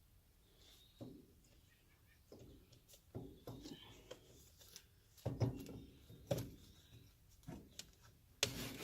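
A string of separate clunks and knocks from metal parts being handled and fitted on a tractor-mounted wood chipper, roughly one every second, with the loudest near the end.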